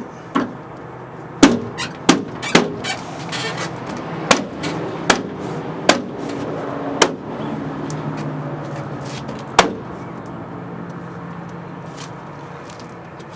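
Door-panel retaining clips being pushed and snapped into the holes of a truck's steel door: about nine sharp, irregularly spaced snaps and knocks, the last about two-thirds of the way through.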